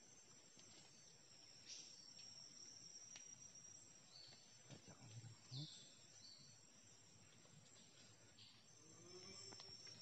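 Near silence: the faint, steady high drone of forest insects, with a few brief faint chirps about four and five and a half seconds in.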